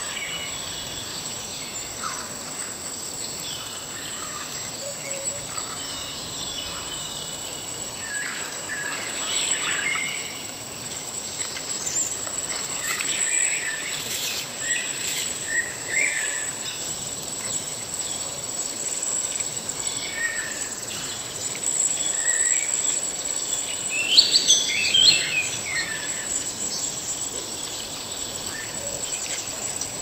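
Forest ambience: a steady high insect drone like crickets, with scattered bird chirps and calls and a busier flurry of calls about three-quarters of the way through, over a soft even rush of falling water.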